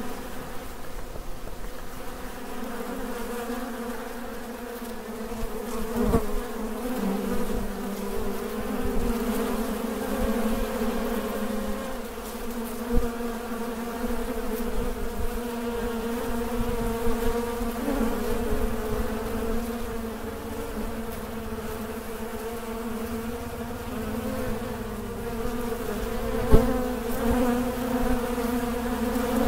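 A honeybee colony buzzing steadily from an opened hive. A few sharp knocks stand out over it, the loudest near the end.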